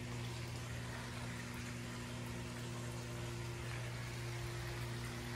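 Steady low machine hum over a soft hiss.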